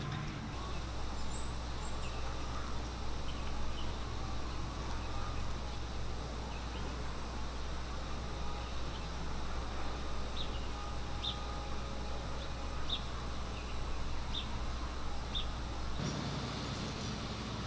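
Outdoor ambience: a steady low rumble with a few faint, short high chirps, about ten to fifteen seconds in.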